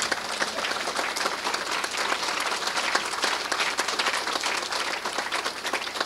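Audience applauding: many hands clapping in a dense, steady round.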